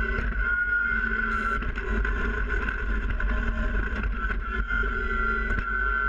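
Kubota BX compact tractor's three-cylinder diesel engine running, heard from a camera mounted on the loader arm, with a steady low rumble and a steady high whine above it.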